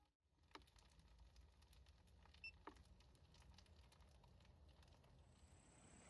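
Near silence: faint room tone with a few soft clicks and a faint high steady tone coming in near the end.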